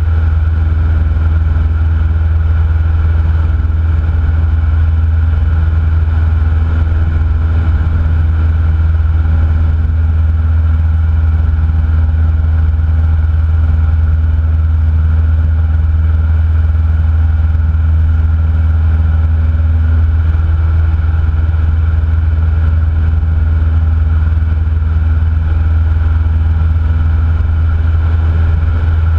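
Cessna 172N's four-cylinder Lycoming O-320 engine and propeller running as a loud, steady low drone that does not change in pitch or power.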